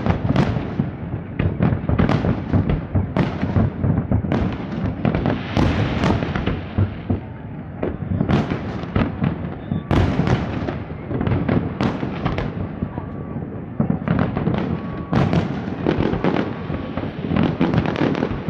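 Aerial fireworks display: a dense, continuous barrage of bangs from bursting shells, several a second, over steady crackling.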